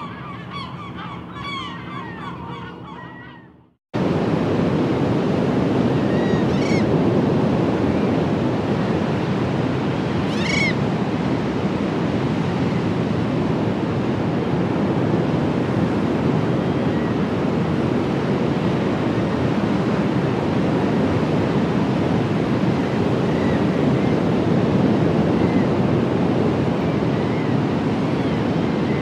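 Music ending abruptly about four seconds in, then the steady rush of surf breaking on a sandy beach. A seabird calls twice a few seconds after the surf begins, with a few fainter calls later.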